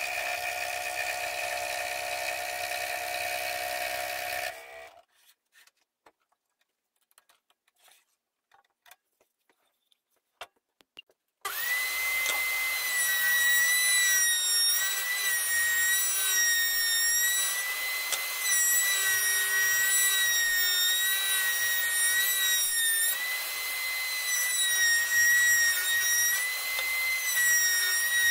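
A Proxxon scroll saw's blade cutting through a wooden cutting board, which stops after about four and a half seconds. After a few seconds of near silence with faint clicks, a table-mounted router starts suddenly with a high whine and runs while the board's edge is fed across the bit, its pitch dipping slightly under load from time to time.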